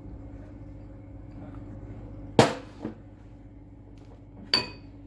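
Two sharp clacks of kitchenware, a couple of seconds apart, as cheese is added to the banitsa filling: the first is the louder, with a small knock just after it, and the second leaves a short high ring. A faint steady hum runs underneath.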